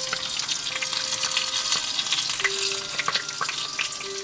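Fat sizzling and spitting on a pork belly roasting in a glass dish in a hot oven: a dense, steady crackle of many small pops as the rind crisps. It cuts off suddenly near the end.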